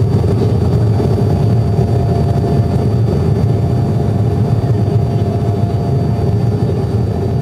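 Turbofan engine and airflow noise inside an airliner cabin during the climb: a steady low drone, with a couple of faint steady tones above it.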